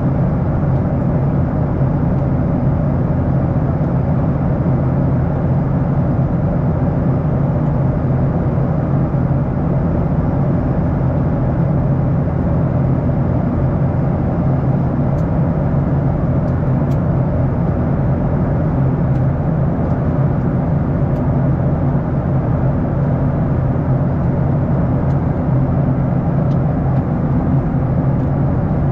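Steady cabin noise inside a Boeing 737-800: a low, even drone from its CFM56-7B turbofan engines under a constant rushing hiss, with no change in level.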